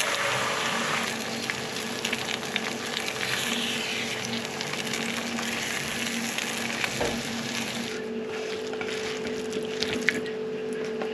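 Beaten eggs sizzling as they fry with bacon pieces in a hot non-stick frying pan, a steady hiss, while a spatula stirs them, with small clicks and scrapes of the spatula on the pan.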